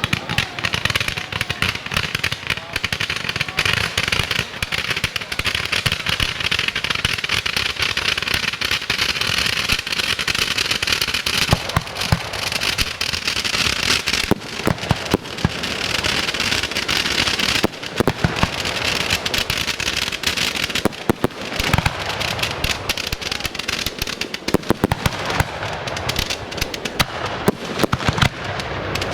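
Fireworks display going off: a dense, continuous crackle with many sharp bangs following one another without a pause.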